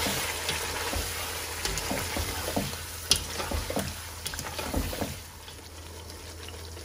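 Chicken curry gravy, with yogurt and cashew paste just added, sizzling in a pot while a spoon stirs it, with scattered scrapes and clicks of the spoon against the pot. The sizzle drops quieter about five seconds in.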